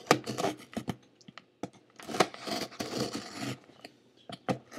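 A paring knife slitting and scraping through packing tape on a shipping box: a series of irregular rasping strokes with a few sharp clicks, the loudest just after the start and about two seconds in.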